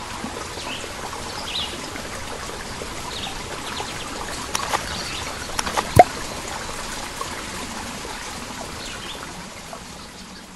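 Running water with a steady rush, a few faint bird chirps over it and one sharp click about six seconds in; it fades out near the end.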